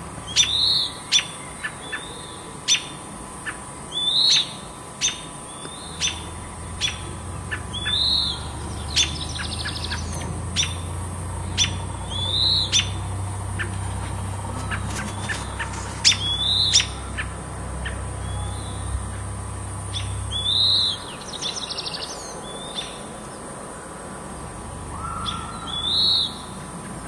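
Small birds calling repeatedly near a perched red-tailed hawk that is eating its kill: a short rising-and-falling high call every few seconds, with quick sharp chips in between. These are most likely birds scolding the hawk near their nest.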